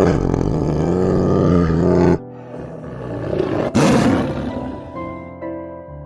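A big cat roaring: one long, rough roar of about two seconds, then a second, shorter roar nearly four seconds in, over background music.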